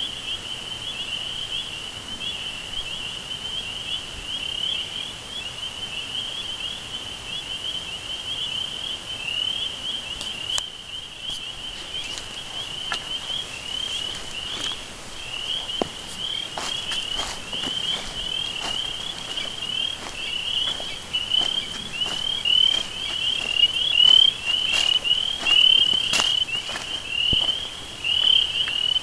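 A continuous chorus of chirping insects, such as crickets, pulsing steadily at one high pitch. Scattered sharp clicks come in from about halfway through.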